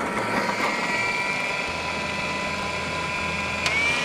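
Electric food processor's motor running steadily with a whine as its blade chops gherkins, capers and parsley. Near the end there is a click and the motor's pitch steps up slightly.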